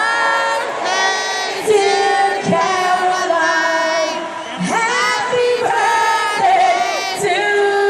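Live concert singing: a woman's voice, with crowd voices joining in, in long held notes that glide between pitches. There is little sign of a backing band.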